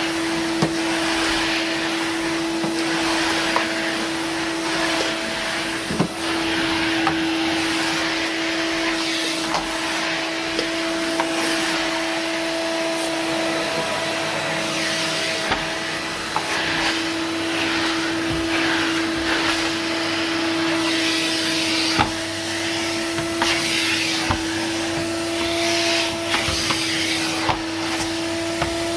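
A 1994 Numatic NVR375 vacuum cleaner running while vacuuming: a steady motor whine under a hiss of rushing air that rises and falls with the strokes of the tool. A few short clicks and knocks come through, for example about six and twenty-two seconds in.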